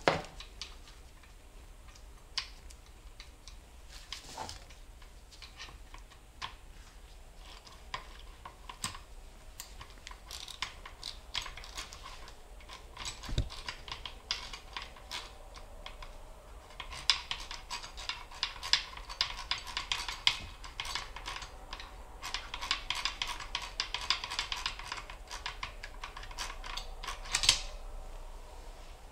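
Hand ratchet wrench clicking as a bolt on a transmission case is turned out by hand, with scattered metal clinks of tool and parts at first, then long runs of fast ratchet clicks in the second half.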